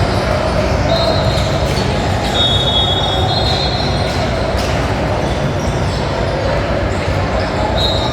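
Basketball shoes squeaking on a gym floor during play: several high squeaks, some held for about a second, over the steady din of a gym.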